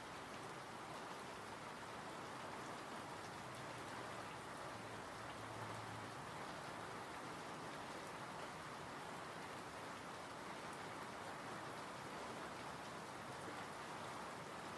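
Steady rain falling, an even hiss of drops with faint fine pattering of individual drops.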